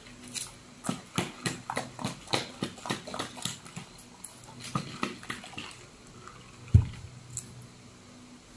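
A sealed plastic cup of iced milk tea with pearls being shaken. The ice and pearls knock and slosh inside it in a run of irregular clicks. About two-thirds of the way in there is one heavy thump, as the cup is set down on the table.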